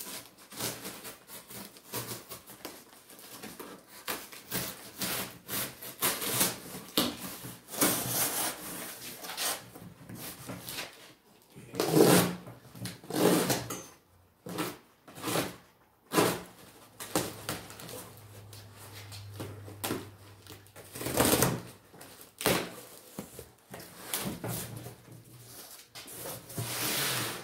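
Cardboard shipping box being slit along its taped seam and pulled open by hand: an irregular run of scrapes, rips and knocks of cardboard and packing tape.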